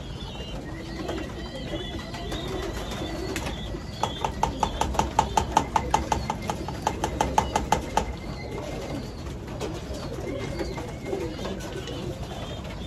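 Domestic pigeons cooing in a loft, with high bird chirps over them. In the middle comes a rapid, even tapping of about twenty sharp ticks, roughly five a second, lasting about four seconds.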